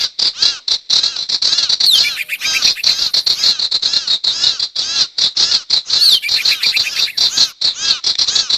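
Recorded lure calls of the sirtu bird: a fast, unbroken string of high, arched chirps, the same phrase coming round again about every four seconds, as in a looped luring track.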